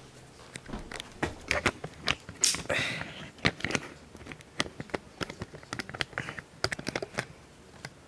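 Handling noise as the camera and tripod are moved and reframed: a run of irregular clicks, taps and knocks, with a short rustle about two and a half seconds in.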